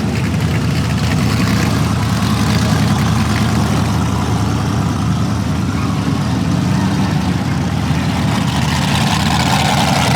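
An off-road vehicle's engine running steadily at low revs, deep and even, with no revving up or down.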